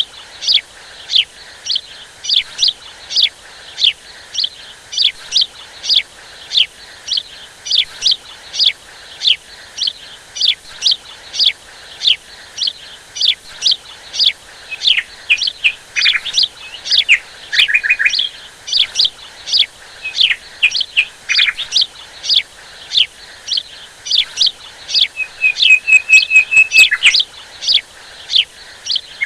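Songbirds chirping: short, high, downward-sliding chirps repeat about twice a second, with a few lower notes about halfway through and a quick trill near the end.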